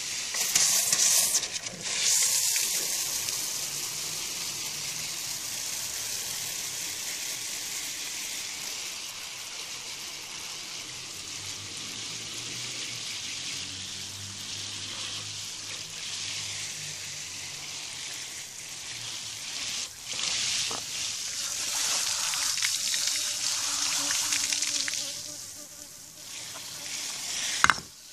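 Water spraying from a garden hose onto soil in plastic plant pots, a steady hiss with splashing as the pots fill with standing water, louder at the start and again about two-thirds of the way through. A short sharp click near the end.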